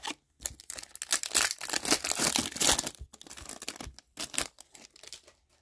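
A sealed trading-card pack's wrapper torn open and crinkled by hand. It is a dense run of crackly tearing lasting about two and a half seconds, then a few lighter crinkles.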